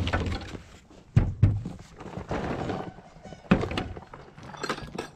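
Cans, a bottle and a cordless impact driver set down one after another on a plastic folding table: several hollow thunks, the two loudest close together about a second in.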